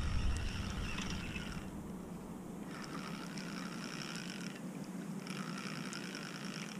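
Fixed-spool fishing reel being wound in on a feeder rod, a whirring that comes in three spells of one to two seconds each with short pauses between.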